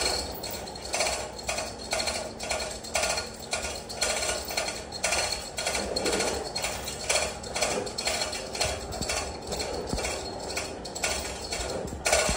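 Manual chain hoist holding an engine being worked by hand: metallic ratchet clicks in a steady rhythm, two or three a second.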